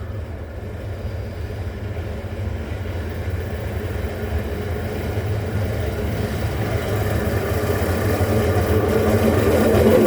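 Class 70 diesel locomotive's V16 engine running as it hauls a loaded stone train on approach, its low steady drone growing louder throughout.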